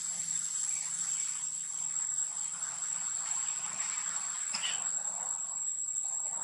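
Forest insects droning: a steady high-pitched whine without a break, with a brief sharp sound about four and a half seconds in.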